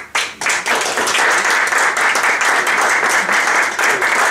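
Small group applauding: a few separate claps at first, filling out into steady applause within the first second.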